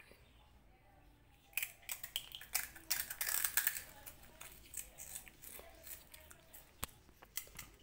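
A kitten biting and crunching a crunchy puffed corn snack (Kurkure). A run of sharp crunches starts about a second and a half in, is densest around three to four seconds, then thins to scattered crunches.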